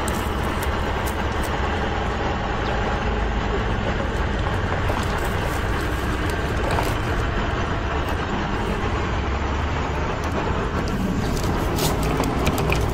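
A steady low rumble with scattered clicks and rattles. About midway, soil and gravel pour out as a plastic toy dump truck's bed is tipped.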